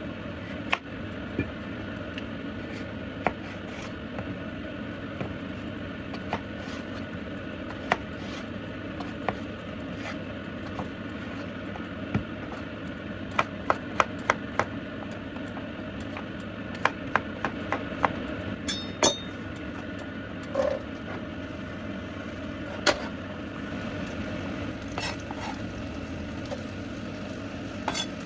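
Kitchen work sounds: scattered sharp knocks and clinks of utensils, cookware and a board, with a quick run of knocks about halfway through and one ringing clink a little later, over a steady background hum.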